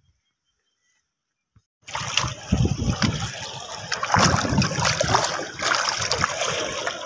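Muddy canal water running high, sloshing and splashing against the bank in choppy waves; it starts suddenly about two seconds in, after near silence.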